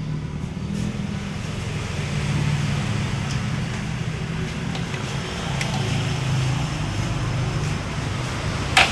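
Yamaha Vixion's single-cylinder four-stroke engine running steadily at idle, on an engine with a blown cylinder head gasket. A short metallic click comes near the end.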